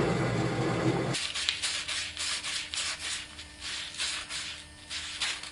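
Hand-sanding a wooden stake with a piece of sandpaper: quick back-and-forth rubbing strokes, about three a second. A louder steady noise at the start cuts off suddenly about a second in.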